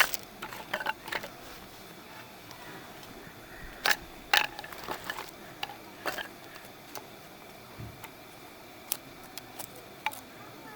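Scattered light clicks and knocks at irregular intervals over a steady faint hiss, the loudest pair about four seconds in.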